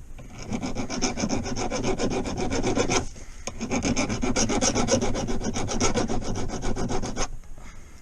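Hand file rasping quickly back and forth over a fresh weld on a truck's gear shifter, smoothing it down. The filing comes in two runs, with a short break about three seconds in.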